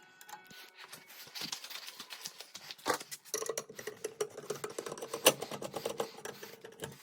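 Rapid clicking and clattering of fire alarm devices being handled and reset, sped up in a time-lapse. Two knocks stand out, about 3 and 5 seconds in, and a steady low tone joins about a third of the way through.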